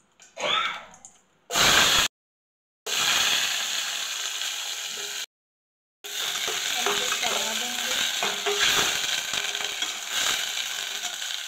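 Diced bottle gourd sizzling in hot oil tempered with cumin and red chilli, in a steel saucepan, while a metal spatula stirs and scrapes against the pot. There is a loud burst of sizzling about a second and a half in, and two brief dead silences.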